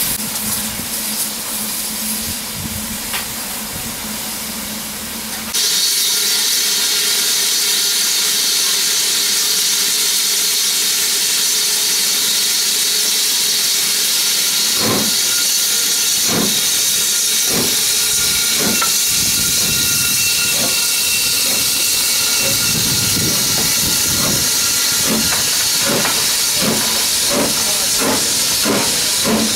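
Two-cylinder steam locomotive, BR Standard Class 9F 2-10-0 No. 92203 Black Prince, starting a train: steady loud hiss of steam from the open cylinder drain cocks, and from about halfway its exhaust beats begin, slow at first and quickening as it gets under way.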